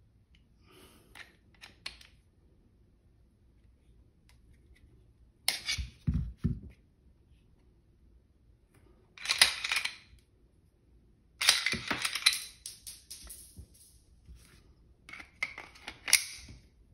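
Glock 19 Gen 3 pistol being worked by hand, its magazine and slide giving sharp metallic clacks and clicks in several bursts, the first about five seconds in with a dull thud.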